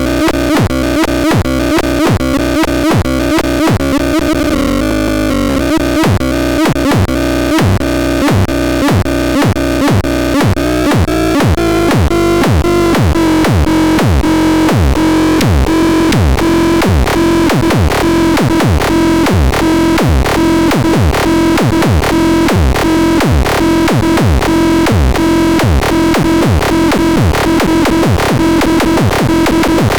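Electronic synthesizer playing a pulsing pattern: a steady buzzy drone under repeated downward pitch sweeps, like kick-drum zaps, that quicken to a few per second about halfway through.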